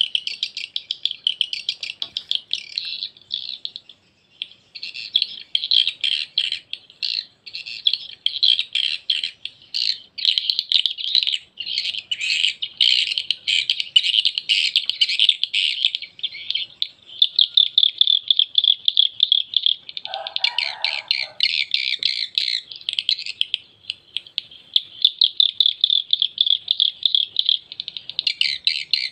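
Recorded swiftlet calling sound played through a swiftlet-house amplifier and two square tweeters: a dense stream of fast, high twittering chirps with a few short breaks, relaxed and unhurried and very clear. A lower-pitched chatter joins in briefly about twenty seconds in.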